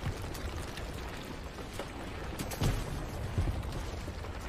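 Steady rushing noise with scattered pattering and two dull thuds a little under a second apart, about two and a half and three and a half seconds in: rock and snow falling as a snow leopard and an ibex tumble down a mountainside.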